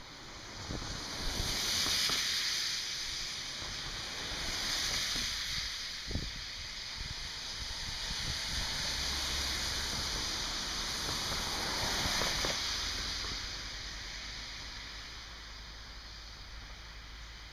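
Cars driving past one after another on a wet, slushy street, the hiss of tyres on the wet road swelling and fading as each goes by.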